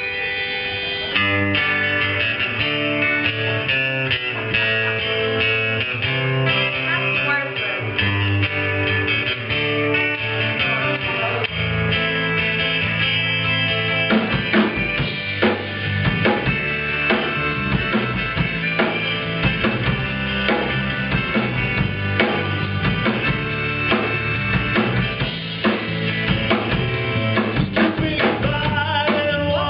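Live band music with guitar and drum kit, the drum hits coming through harder from about halfway in.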